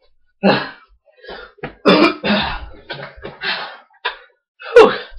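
A person's voice in a series of short, loud, noisy bursts, the loudest near the end falling in pitch.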